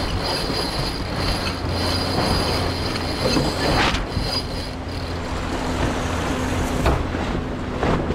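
Wind and water rushing past a racing sailboat under way during a gybe, with a steady high-pitched squeal that drops away about four seconds in and a couple of sharp knocks near the end.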